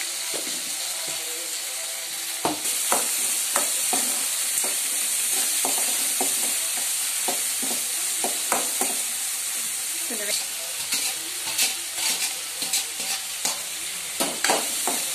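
Shallots, garlic and tomatoes sizzling in hot oil in an aluminium kadai while a steel ladle stirs them. The ladle scrapes and knocks against the pan over and over from about two and a half seconds in.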